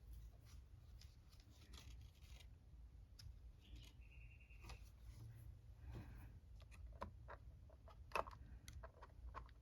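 Faint scattered clicks and scratchy rustles of paper wrappers and stickers being peeled off small plastic watercolour pans, with a brief squeak about four seconds in.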